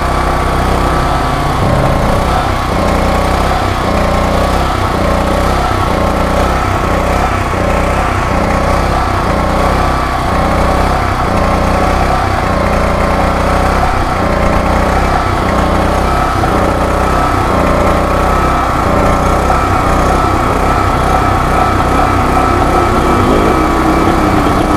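Robin EY20 single-cylinder four-stroke engine running the portable generator at steady speed, its sound swelling and easing slightly about once a second.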